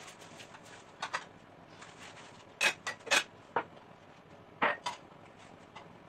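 Dishes clinking and knocking together as they are handled in a plastic basin: a series of sharp clinks in small groups, loudest between about two and a half and three seconds in and again near five seconds.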